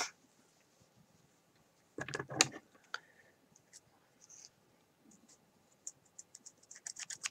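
Scissors snipping at a strand of knitting yarn: a run of small, sharp clicks near the end as the blades open and close several times. The scissors cut very badly. A brief louder sound comes about two seconds in.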